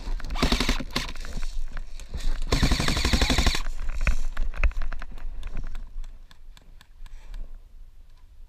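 Airsoft rifle firing two rapid full-auto bursts, about a second each and a second apart, followed by scattered lighter clicks.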